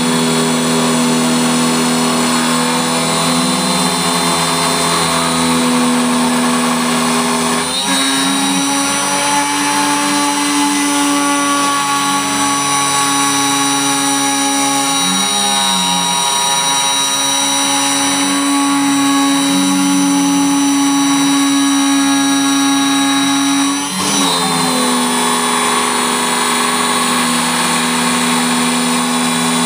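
DIY CNC router spindle, a brushless RC airplane motor, running with a steady whine while the router mills a wooden blank. About eight seconds in the whine steps up slightly and steadies, with softer tones rising and falling beneath it; some sixteen seconds later it steps back down.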